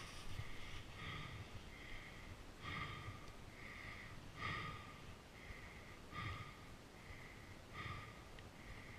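A person breathing hard and fast close to the microphone, about one short breath every half second to second, with no engine running.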